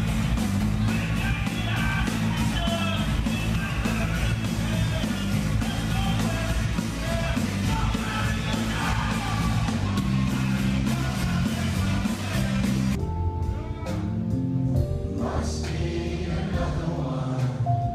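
Live rock band playing loud, with singing over guitar, bass and drums. About thirteen seconds in it cuts to a quieter passage of held notes.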